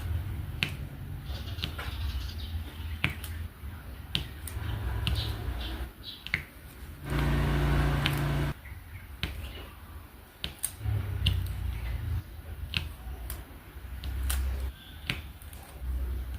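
Diamond painting drill pen setting resin drills onto the canvas: sharp, irregular clicks and taps, with a low rumble coming and going. About halfway through, a louder steady noise runs for a second and a half.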